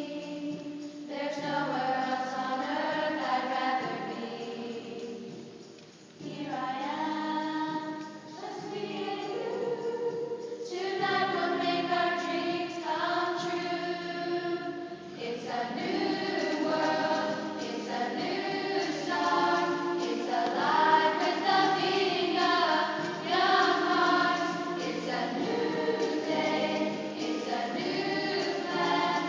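A choir singing, several voices holding long notes together.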